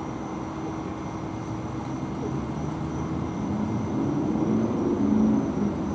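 A motor vehicle's engine approaching, growing steadily louder over the last few seconds, over a constant background of traffic noise.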